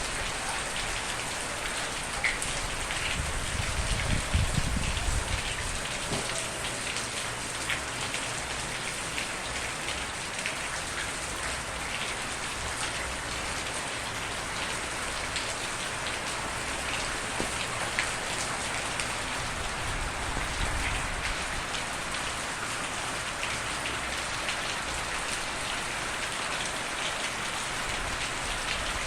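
Steady rain falling on a surface, a dense even patter of drops. A low rumble swells briefly about four to five seconds in.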